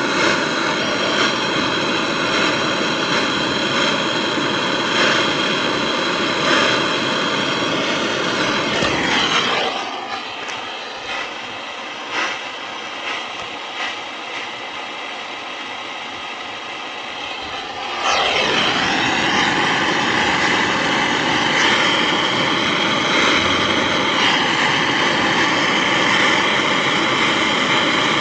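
Brazing torch flame hissing steadily as a copper joint is heated, where the braze is not flowing in yet. About ten seconds in the sound drops quieter for some eight seconds, then comes back to full level.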